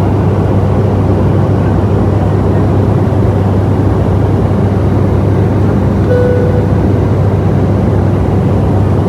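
Steady cabin noise of a turboprop airliner in flight: a deep, even propeller drone under a rushing hiss. A brief tone sounds about six seconds in.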